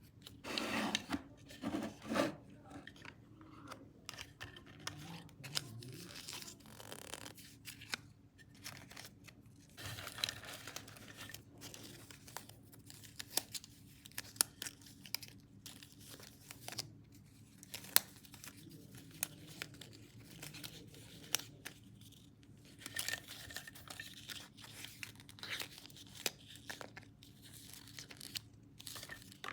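Paper being handled and torn for a journal page: irregular rustling, crinkling and tearing, broken by scattered sharp clicks.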